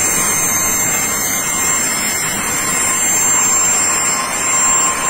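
Jet airliner's turbine running steadily: a constant rush with a thin steady whine over it.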